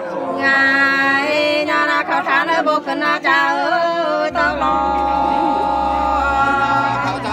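Singing in the sli folk style, with long held, wavering notes that slide between pitches. A low steady hum joins about four seconds in.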